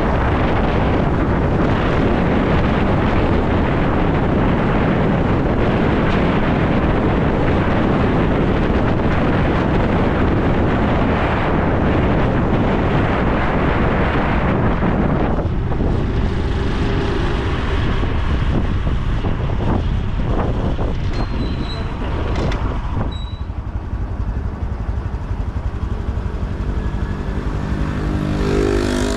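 Honda Super Cub C125's single-cylinder engine and wind noise while riding; about halfway it eases off and the engine runs slower and quieter, then picks up again near the end.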